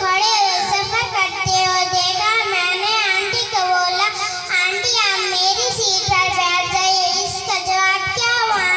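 A young girl singing into a stage microphone over a PA, with backing music under her voice.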